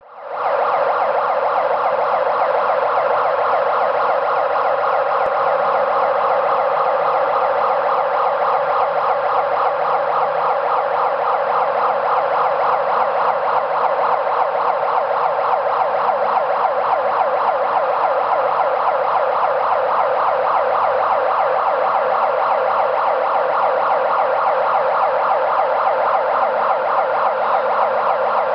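Overhead crane's electronic warning siren sounding continuously with a fast, even warble, the alarm that sounds while the crane is working a load.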